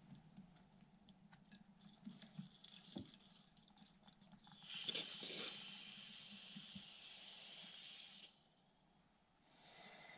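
AeroPress coffee maker being plunged by hand: a few faint ticks, then about halfway through a loud hiss of air forced through the coffee grounds and paper filter at the end of the press, lasting about four seconds and stopping suddenly.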